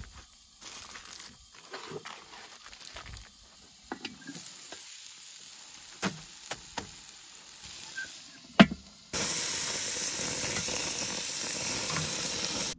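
Burger patties sizzling on a Weber grill: a steady, loud sizzle that starts abruptly about nine seconds in, as a patty is turned with metal tongs. Before it, aluminium foil crinkling and a few clicks and knocks, the sharpest just before the sizzle.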